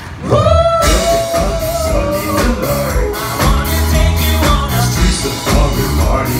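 Live pop-rock band playing loudly: the full band with drums, bass and guitar comes in just after the start under a long held sung note, then drives on with a steady beat.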